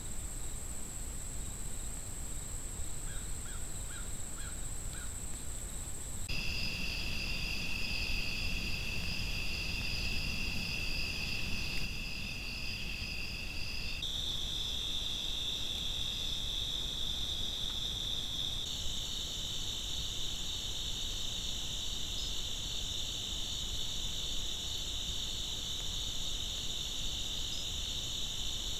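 Night insects, cricket-like, trilling steadily in a high-pitched chorus over a low steady rumble. The pitch and mix of the chorus change abruptly three times, at about six, fourteen and nineteen seconds in.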